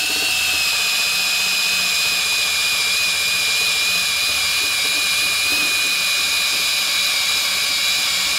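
Cordless drill spinning a rubber sticker-eraser wheel pressed against a painted panel, rubbing a sticker off: a steady high-pitched motor whine under load.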